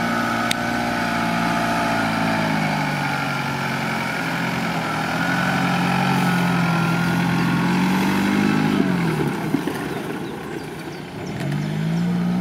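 Suzuki Samurai off-roader's engine running under load as it climbs a dirt track, its pitch wavering. The revs drop off about nine seconds in and pick up again near the end.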